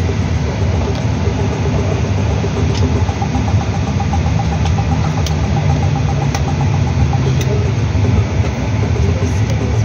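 Steady cabin noise inside a Bombardier CRJ900 on the ground: a low engine hum with a faint higher whine in the middle and a few light ticks.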